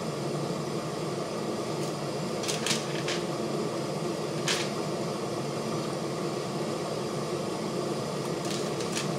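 Steady room hum and hiss, fan-like, with a few short soft ticks: three about two and a half to three seconds in, one near the middle, and two near the end.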